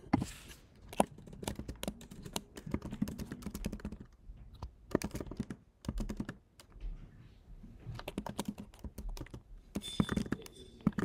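Typing on a computer keyboard: a run of quick, uneven key clicks in bursts with short pauses between words.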